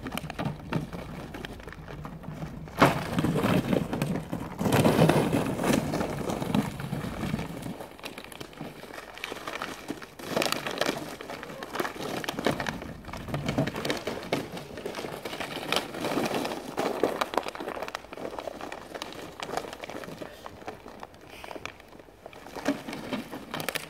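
Irregular crunching and scuffing on packed snow as two puppies bite and tug at toys dragged across it on lines, with the handler's footsteps crunching in the snow. It is busier and louder in the first several seconds.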